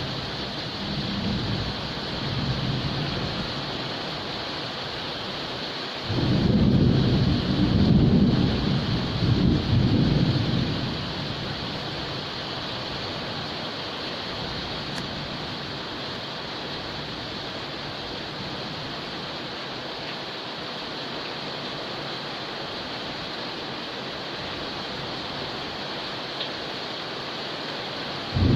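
Steady heavy rain falling. A thunderclap breaks in suddenly about six seconds in and rumbles in several swells for about five seconds, with fainter rumbles in the first few seconds and another clap right at the end.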